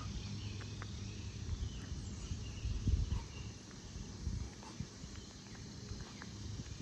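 Footsteps and small knocks on a trail over a faint, even high hiss of cicadas that have nearly stopped calling.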